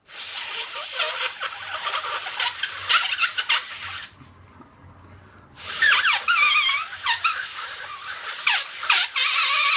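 A homemade folded-paper noise maker blown through the triangle notches cut at its fold, giving a shrill, wavering squeal over rushing breath. Two long blows, the second starting about halfway in.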